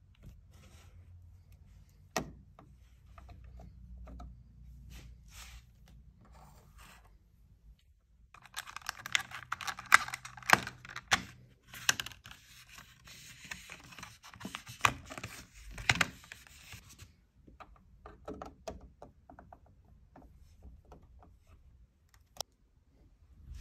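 Hands handling computer parts: scattered sharp clicks and light knocks, with a busier stretch of scraping and rustling in the middle as the processor's clear plastic clamshell tray and the CPU cooler are moved about.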